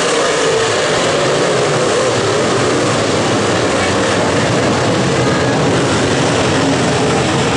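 Dirt late model race cars' V8 engines running hard at racing speed, a loud steady engine noise whose pitch wavers up and down as the cars pass.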